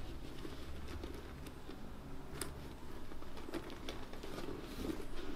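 Faint rustling and scattered soft clicks of a hand feeling around inside a Louis Vuitton Papillon 30 monogram canvas and leather handbag.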